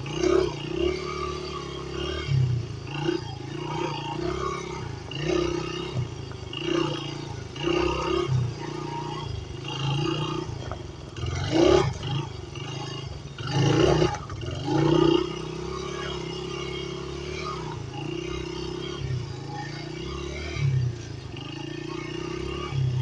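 Dirt bike engine revving up and down as it is ridden, swelling and easing off every second or two, with a few sharper bursts of throttle near the middle.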